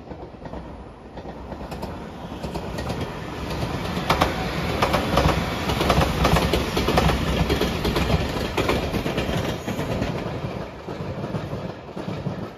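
JR 8000-series electric limited express train passing at speed, its wheels clacking repeatedly over the rail joints. It builds up over the first few seconds, is loudest in the middle, then eases off as the train moves away.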